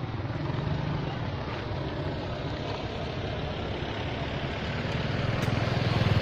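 An engine running steadily with a low, rapid hum, growing louder near the end.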